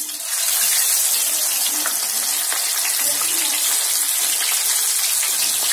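A flour-dredged fish, wet from a dip in lemon water, lowered into hot frying oil, which sizzles steadily from just after it goes in.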